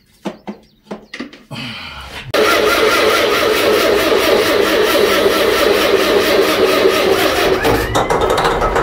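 A few light clicks, then, about two seconds in, the electric starter cranks an antique Murphy diesel engine. It turns over steadily without catching.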